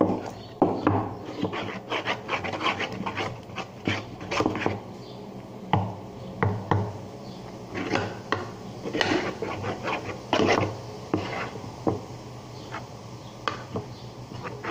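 A utensil scraping and stirring a thick slime mixture in irregular strokes; the slime has thickened and is hard to stir.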